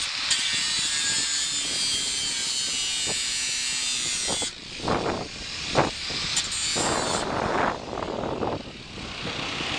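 Angle grinder cutting into a steel spot weld on a car door flange, running steadily and then stopping about four and a half seconds in, with a second short burst of grinding a couple of seconds later. Gusts of wind buffet the microphone in the gaps.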